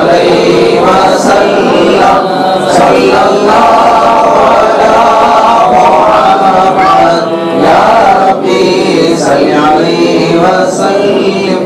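A group of men chanting devotional verses together.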